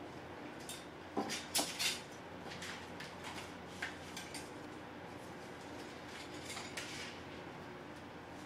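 Metal palette knives clinking and clattering as they are handled and set down on a plastic palette board. A quick cluster of sharp clinks comes about a second in, then scattered lighter clicks, and a couple more near the end.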